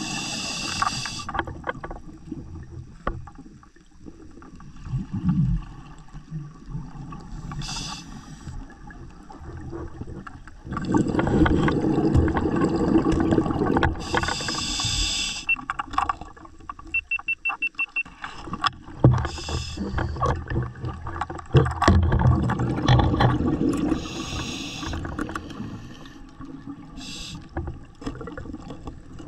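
Scuba diver breathing underwater: a short hiss of the regulator recurs every few seconds, with rumbling bubble noise in between. A short run of quick ticks comes about two-thirds through.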